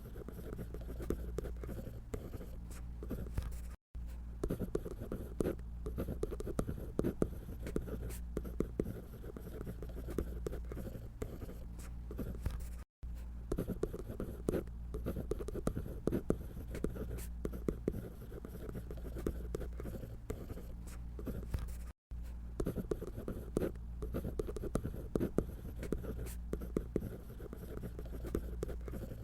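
Drawing on paper: a steady stream of quick, scratchy strokes across a sheet. The strokes break off briefly three times, about 4, 13 and 22 seconds in.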